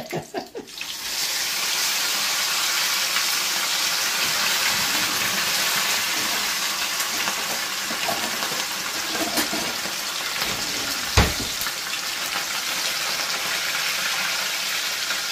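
Whole croaker frying in a pan of hot oil: a steady sizzle that starts about a second in as the fish goes into the oil. A single sharp click about eleven seconds in.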